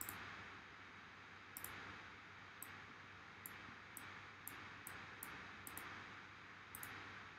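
Faint computer mouse clicks, about a dozen spread irregularly, some in quick pairs, over a low steady hiss.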